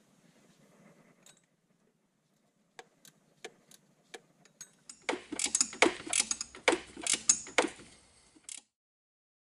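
Metal hand tools clicking against car engine parts: a few separate sharp clicks, then about three and a half seconds of dense, loud metallic clicking and rattling that cuts off suddenly near the end.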